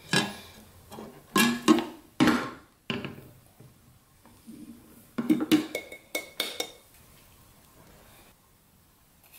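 Glass baking dish knocking and clinking against a ceramic plate: a run of sharp knocks in the first three seconds and another from about five seconds in, one ringing briefly.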